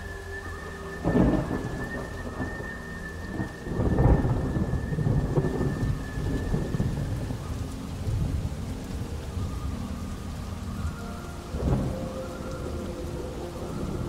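Thunderstorm: steady rain with three claps of thunder, about a second in, about four seconds in and near the end. The middle clap is the loudest and rumbles on for a few seconds.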